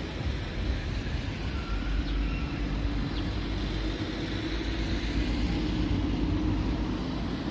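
Steady low rumble of motor vehicle traffic, with a faint engine hum from about two seconds in.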